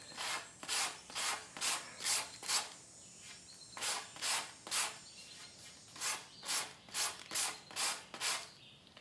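Hand sanding with 80-grit sandpaper wrapped around a block: even back-and-forth strokes, about two a second, across the epoxy-coated tip of a wooden kayak paddle, rough-sanding down the ridges. The strokes stop briefly twice.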